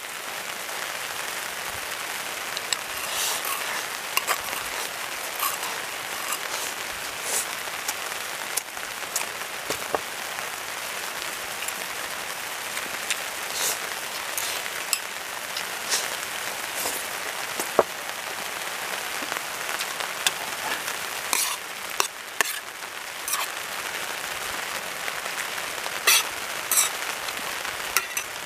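Beef and onions sizzling in a frying pan over a charcoal shichirin: a steady crackling hiss with scattered sharp pops.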